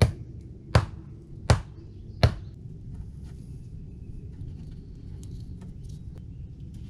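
A wooden stake being pounded into the ground with a metal-headed hand tool: four sharp strikes, evenly spaced about three-quarters of a second apart, in the first two and a half seconds.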